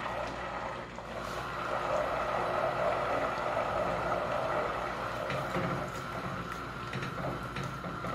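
Melted butter sizzling and bubbling steadily in a stainless steel pot as it simmers down into ghee, with its water cooking off. Light taps and scrapes of a silicone spatula stirring the pot come in during the second half.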